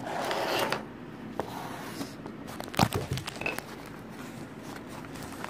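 Handling noise: fabric and fingers rubbing close to the phone's microphone as the doll in its cloth dress is held against it, with a rustle in the first second and a sharp knock a little under three seconds in.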